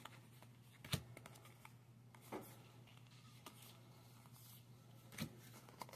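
Faint handling of game cards, a few soft clicks and rustles as the cards are fanned and moved between the hands, over a low steady hum.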